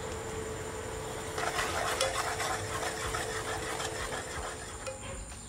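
Steel spoon stirring and scraping thick frying tomato-onion masala in an aluminium pot, over the steady hum and whine of an induction cooktop. The scraping starts about a second in and eases off near the end.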